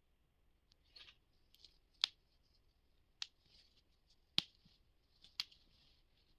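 Packaging being handled during an unboxing: soft rustling broken by four sharp clicks about a second apart, the loudest about two and four seconds in.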